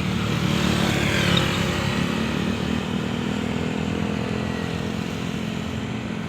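A motorcycle engine running, slowly fading, over a steady dense hiss.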